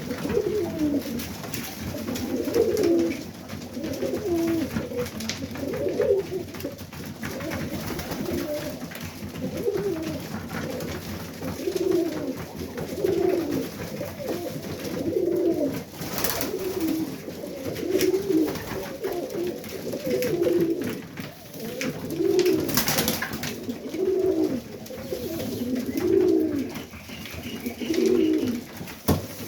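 Serbian Highflyer pigeons cooing, several birds overlapping in a steady run of low, repeated coos. There are two short noisy scuffs partway through.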